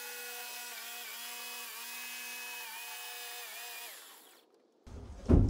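Corded Skil jigsaw cutting a wooden panel along a curved line: a steady motor whine that dips slightly in pitch about once a second as the blade loads, fading out about four seconds in. A loud knock comes at the very end.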